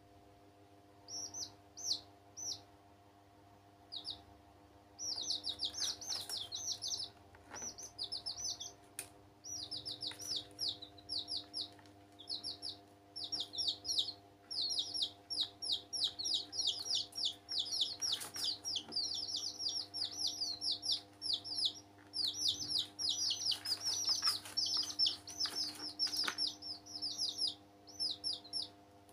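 Domestic chicks peeping: rapid, high-pitched peeps, a few scattered ones at first and then nearly continuous runs from about five seconds in.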